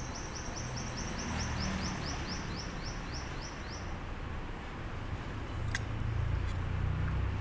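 A small bird singing a fast series of short rising chirps, about five a second, that stops about four seconds in, over a low background rumble.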